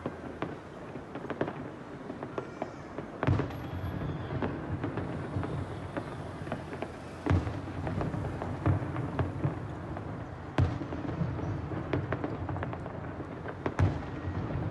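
Fireworks display: a steady run of crackling pops with four louder booms spaced about three to four seconds apart.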